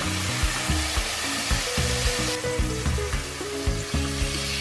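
Catfish fillets frying in hot olive oil and lime marinade in a stainless frying pan, a steady sizzle that eases a little about halfway through. Background music plays underneath.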